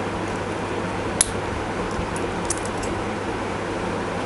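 A spring-loaded shield cutter snips at the metal shield can of a mobile phone circuit board: one sharp metallic click about a second in, then a few faint ticks. A steady hum runs underneath.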